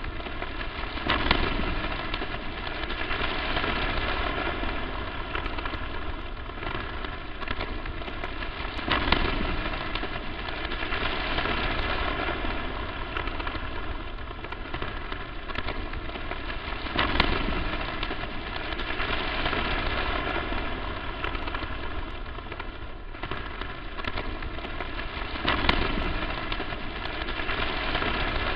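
Electronic static noise: a steady, crackling hiss with a louder surge about every eight seconds.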